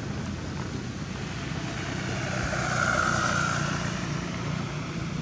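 A passing vehicle: its noise swells to a peak about three seconds in and then fades, over a steady low hum.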